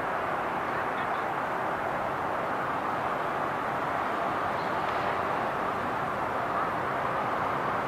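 Airport ambience: a steady rush of jet aircraft engine noise across the airfield, even and unbroken.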